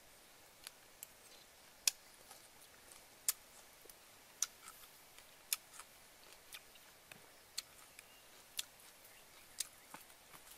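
Faint, sharp mouth clicks about once a second from a person chewing a mouthful of food.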